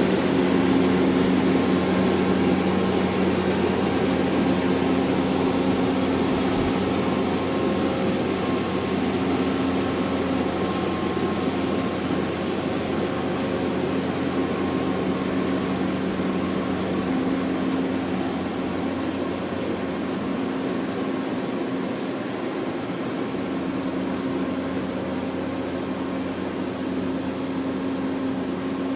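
Engine of a multi-axle heavy-load transporter running steadily as it crawls past, a droning hum with a few held low tones over rolling noise, slowly fading as it moves away.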